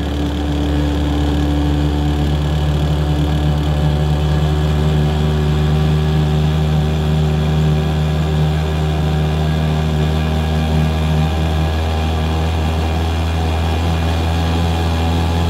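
Homemade outboard motor built from a two-stroke chainsaw engine, running steadily at a constant speed while driving the boat.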